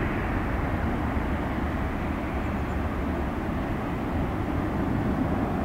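Boeing 747-400's four turbofan engines at takeoff power as it climbs out, heard from a distance as a steady, low rumble.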